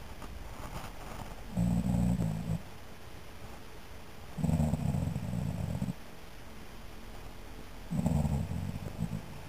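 A man snoring in his sleep: three loud snores about three seconds apart, each about a second long.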